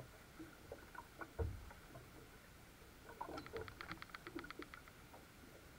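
Small knocks and patter around a small boat as a hydrofoil board is dropped into the water and jumped onto from the bow, with one low thump about a second and a half in. A fast, even run of clicks follows a little past halfway.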